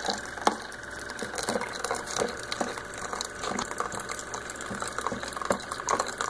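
Keurig single-serve brewer dispensing hot water into a plastic container of oats: its pump runs with a steady hum over the sound of the stream pouring in. Irregular light clicks come from a spoon stirring against the container.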